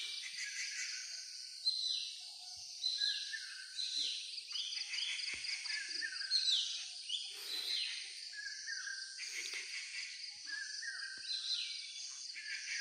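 Wild birds calling: a run of short repeated notes, each falling in pitch, over a steady high, evenly pulsing trill of insects.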